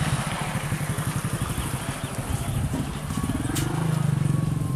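A small engine running steadily with a fast throb, its pitch rising briefly about three seconds in; a single sharp click about three and a half seconds in.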